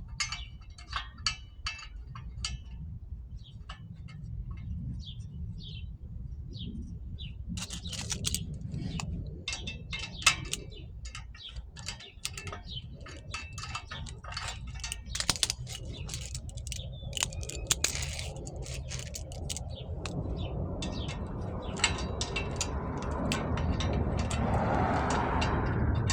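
Metal clinking and clicking of a hand tool and clamp as a fake turbo whistle is fitted to a car's exhaust tip, over a steady low rumble.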